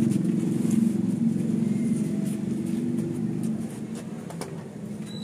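A motor vehicle's engine running steadily, growing fainter through the second half as it moves off. A faint click sounds near the end.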